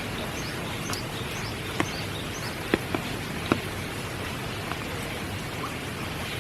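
Steady spring rain falling, with a few sharper drips landing close by in the middle.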